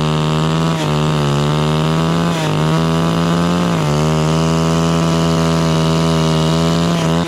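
Two-stroke chainsaw held at full throttle, cutting into a dry jackfruit tree. Its high, steady engine note dips briefly three times.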